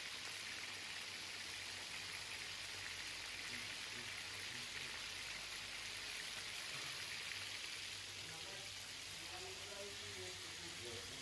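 Chicken kebab skewers deep-frying in hot oil in a kazan: a steady, even sizzle with no breaks.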